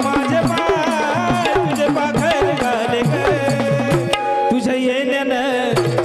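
Instrumental passage of Marathi jagran gondhal folk music: hand drums beat a fast, steady rhythm under a melodic instrument playing a winding, gliding tune.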